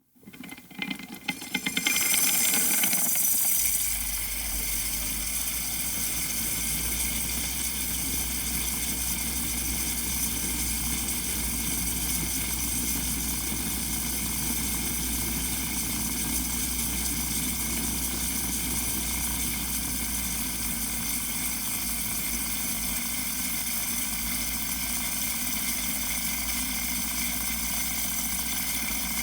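Espresso machine steam wand frothing milk. A few crackles give way to a loud burst of steam hiss about two seconds in, which settles after about four seconds into a steady buzzing hum with hiss.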